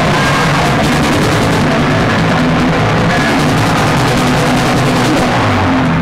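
Live punk band playing loud: drum kit, bass guitar and guitar in a dense, nearly constant wall of sound, recorded close to the stage.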